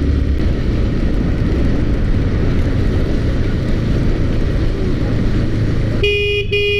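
Honda CBR150 motorcycle riding at speed: a steady rush of wind noise with the engine running underneath. About six seconds in, a vehicle horn starts sounding in short beeps.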